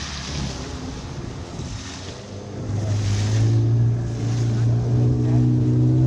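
Motorboat engine running with wind and water rushing past; about three seconds in the engine's steady hum grows louder.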